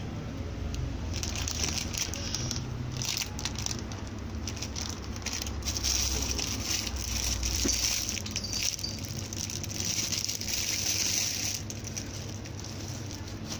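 Clear plastic bags wrapped around squishy toys crinkling and rustling as they are handled, irregular and crackly, easing off about two seconds before the end, over a low rumble.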